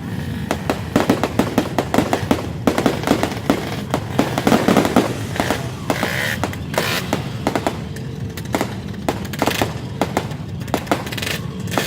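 Fireworks going off in rapid, irregular cracks and bangs, many sharp reports a second with no let-up.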